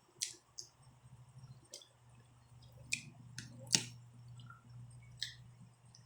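Wet mouth clicks and smacks from someone eating close to the microphone: about a dozen short, sharp, scattered clicks, the loudest about four seconds in, over a faint steady low hum.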